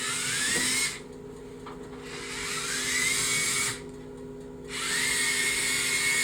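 Lego EV3 drive motors of the Mindstorms EV3D4 robot whirring in three short bursts as it makes quick turns, each with a whine that rises in pitch as the motors spin up and then holds steady.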